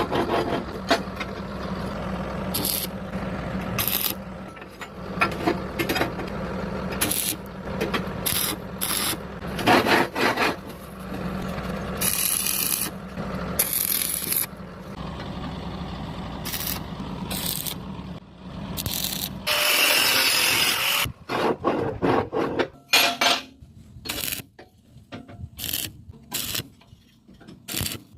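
Irregular rasping and scraping strokes of metalworking hand tools on iron, over a steady low hum that stops about two-thirds of the way through. Just after the hum stops, a louder continuous hiss lasts about a second and a half, followed by sparser, separate scrapes.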